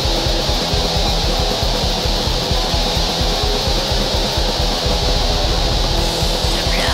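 Black metal recording: heavily distorted guitars over very fast, continuous drumming with rapid kick-drum strikes, dense and steady throughout.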